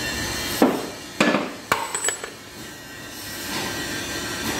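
About four hammer blows on a steel pipe held over the shaft end of a twin-lobe compressor, each a sharp metal clang with a short ring, falling within about two seconds from half a second in. A steady background din runs under them.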